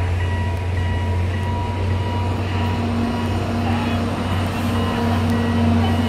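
Level-crossing warning signal sounding, its electronic tones coming and going, over a steady low engine rumble.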